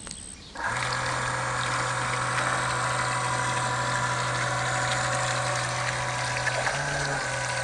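Remote-control fishing bait boat's twin ducted jet thrusters switched on about half a second in, running steadily with a low electric hum and a rushing whir, briefly rising in pitch near the end.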